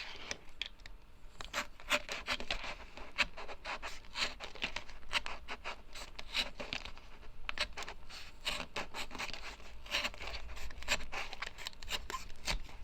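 Cardboard pieces rubbing and scraping with many small clicks and taps as a tight-fitting top piece is worked onto a cardboard stand.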